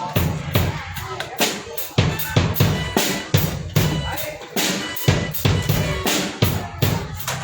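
Drum kit played in a steady beat during a band's sound check, with sharp hits about three to four a second over low bass-drum thumps.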